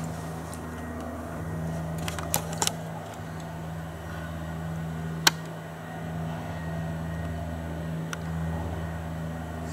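Steady low mechanical hum with a few sharp clicks, the loudest about five seconds in.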